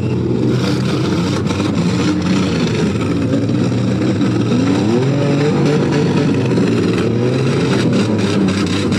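Demolition derby cars' V8 engines running and revving together, one engine climbing in pitch about five seconds in, with scattered short knocks.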